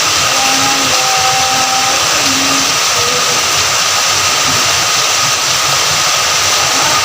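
Steady rain falling, an even, constant rushing patter.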